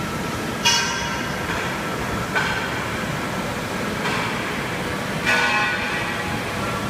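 Metal struck four times, each strike ringing like a bell and fading, over a steady workshop machine hum. The first and last strikes are the loudest, and the last rings longest.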